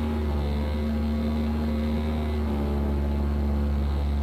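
Model airplane's motor running steadily at cruise, heard from on board the plane, with airflow noise.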